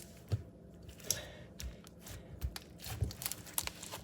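Glossy slime being stretched and pressed by hand, giving off irregular small clicks and pops, a few each second.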